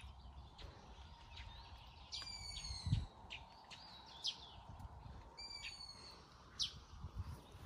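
Birds calling: two long, slightly falling calls about three seconds apart, with short high chirps between them. There is a low rumble of wind or handling on the microphone, and a thump about three seconds in.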